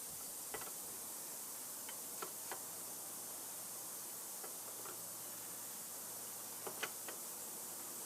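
Scattered light metallic clicks and taps, a few at a time, from metal parts and tools being handled while a machine's slide assembly is worked apart, over a steady faint hiss.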